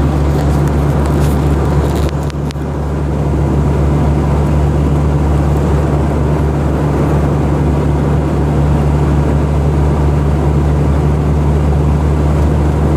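Steady drone of a vehicle's engine and road noise heard from inside the cab while driving.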